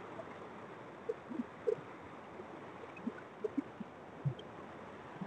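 Steady rush of a large river's flowing water, with scattered faint short sounds over it.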